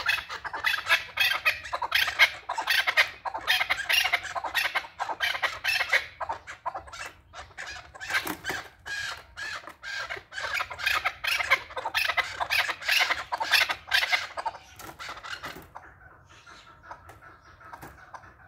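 Chukar partridges calling: a fast, dense run of sharp chuk notes in loud bouts, dying down for the last few seconds.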